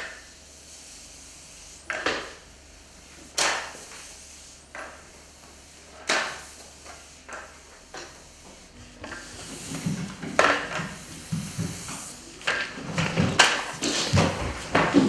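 Roller sponge mop knocking and sliding on hard floor tiles: separate sharp clacks every second or two, then from about nine seconds in a busier run of scrubbing strokes and knocks.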